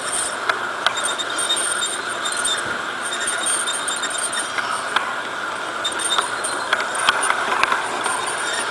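LGB G-scale model streetcar running along garden-railway track: a steady whir from its small electric motor and gearing, with scattered light clicks of the wheels over the rail joints.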